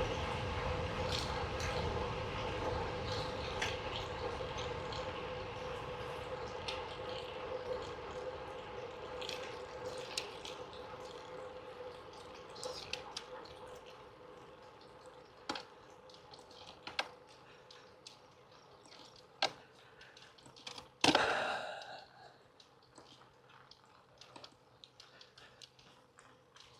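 Riding noise from a road bike: steady wind and tyre hum that fades gradually, with scattered light clicks and one sharp knock about 21 seconds in.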